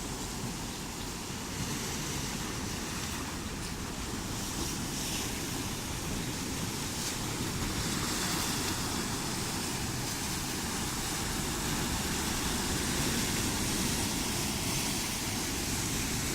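Wind blowing on the microphone over the steady wash of sea surf, a continuous rumbling hiss that gets slightly louder about halfway through.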